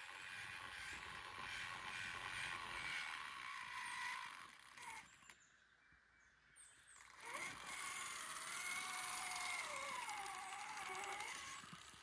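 Electric motor and gears of a radio-controlled scale Ford Bronco crawler whining as it drives over a dirt trail, the pitch rising and falling with the throttle. The whine stops for a second or two about halfway through, then starts again.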